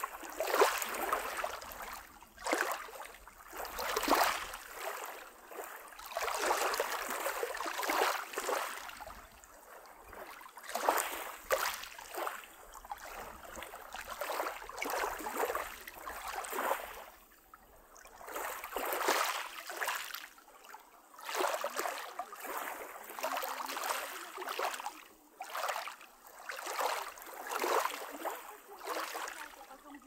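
Small waves of a calm sea lapping on a pebble shore, a soft wash coming in about every one to two seconds.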